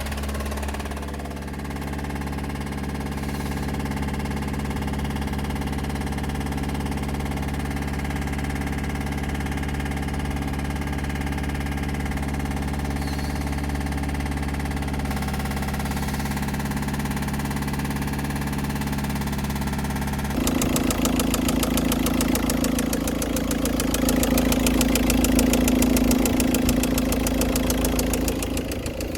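Volkswagen Touran's 1.9 TDI four-cylinder diesel engine running steadily, the engine brought in for a loud knocking. About twenty seconds in the sound changes abruptly to a louder, fast rattling.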